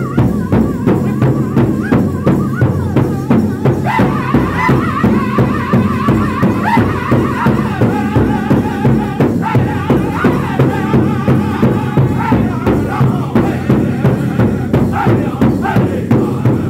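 Powwow drum group playing an intertribal song: several singers strike one large shared hide drum in a steady, even beat while singing together. The drumbeat and the voices carry on without a break.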